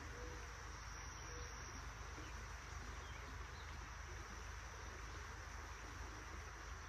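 Faint steady outdoor background: a thin, high, unbroken insect call over an even hiss and a low rumble.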